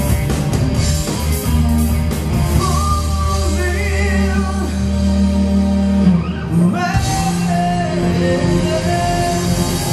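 Rock band playing live: a singer's held, wavering vocal line over electric guitars, bass, keyboards and drums, with long sustained low notes. The chord changes about seven seconds in.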